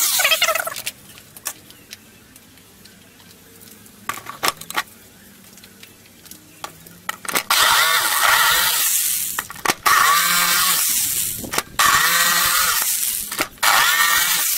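An electric drill boring through plywood stops under a second in. From about seven seconds in, a jigsaw cuts a slot in the plywood in four runs, stopping and starting between them.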